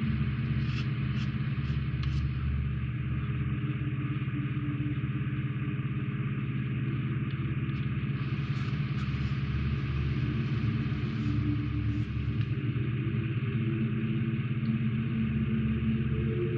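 Steady low hum of a small electric motor running without change, with a few faint light ticks of hard plastic model parts being handled near the start and again in the middle.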